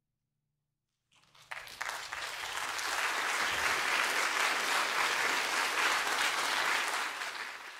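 Audience applause, starting about a second in, building quickly to steady clapping, and dying down near the end.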